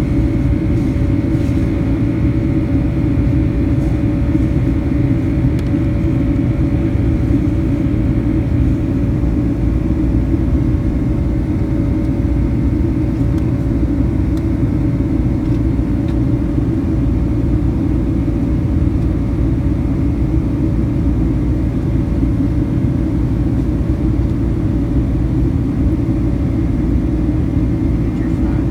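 Steady rumble of engine and airflow noise inside a passenger aircraft cabin in flight, with a faint steady hum above it.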